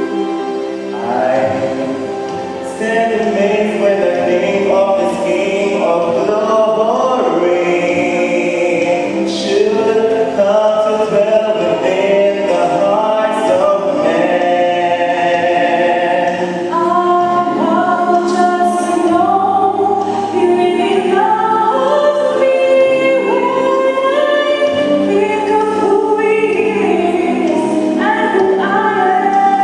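A choir singing a gospel hymn, with several voices holding sustained notes over a low accompaniment.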